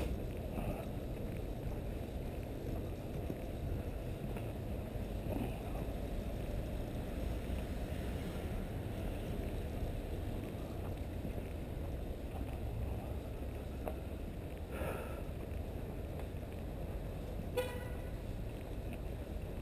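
City street ambience: a steady low rumble of traffic and microphone noise from a camera carried on foot, with a brief car horn toot near the end.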